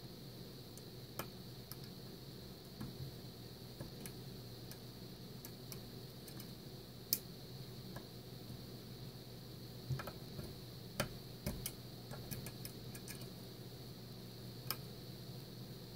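Scattered small metallic clicks and ticks of a lock pick working the serrated pins of a Mul-T-Lock Interactive cylinder, over a steady low hum. They come irregularly, with the loudest about seven seconds in and a cluster of them around ten to twelve seconds.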